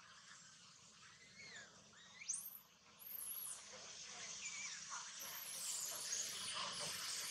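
High-pitched animal calls: a scatter of rising and falling chirps over a steady outdoor hiss, louder and busier from about three seconds in.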